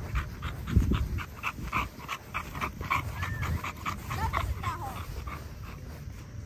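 American Bully puppy panting hard in quick, even breaths, about five a second, with wind rumbling on the microphone and a low thump about a second in.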